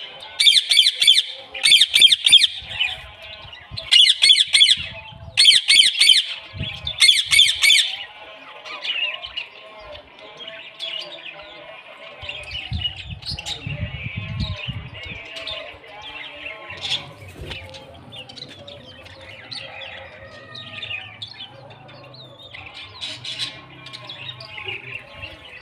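Birds calling: a loud, harsh squawking call repeated five times in the first eight seconds, then many softer chirps and twitters.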